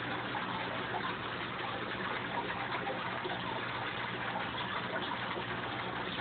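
Steady rushing and bubbling of aquarium water from the tank's filter flow and air bubbles, with a faint low hum underneath.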